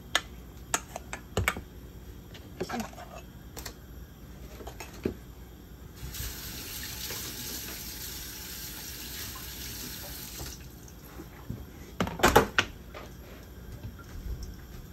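Kitchen tap running steadily for about four seconds in the middle, with scattered clicks and light clatter before and after. A quick burst of loud knocks and clatter comes about twelve seconds in.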